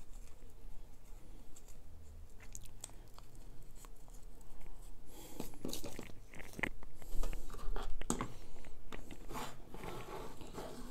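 Hands handling a clear plastic bag and a small paper jig packet: crinkling and rustling with small clicks, sparse at first and busier from about five seconds in.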